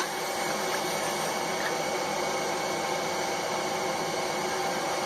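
A blacksmith's forge running with a steady rushing noise and no hammer blows.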